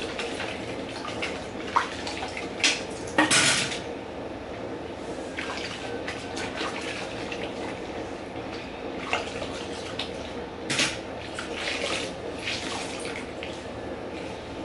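Dishes and utensils clinking and clattering at a kitchen sink over steady running water, with scattered knocks, the loudest about three seconds in.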